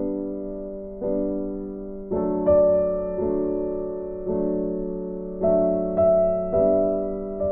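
Slow background piano music: soft chords struck one after another about every second or so, each left to ring and fade.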